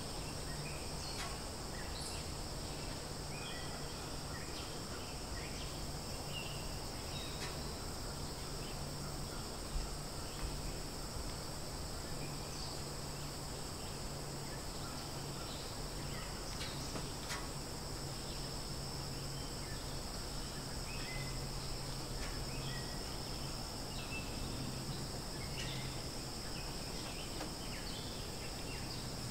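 A steady, high-pitched insect chorus of crickets or cicadas, with scattered short bird chirps over a low steady hum. There is a single brief knock about ten seconds in.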